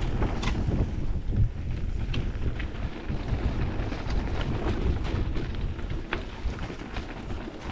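Wind buffeting the microphone over the low rumble of an e-mountain bike rolling over rough ground, with scattered knocks and rattles.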